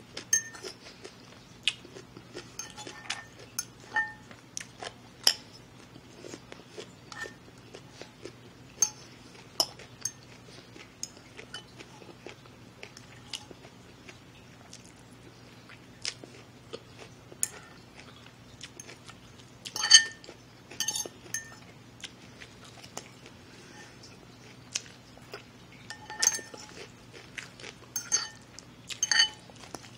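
Close-miked chewing of a crunchy raw radish and spinach salad: scattered crisp crunches and mouth clicks, busiest about 20 seconds in and again near the end.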